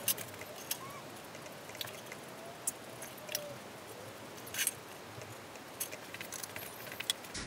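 A handful of light, scattered clicks and taps from a paint marker and hands working on an upturned coated metal baking pan while points are marked on it. The sharpest click comes about four and a half seconds in.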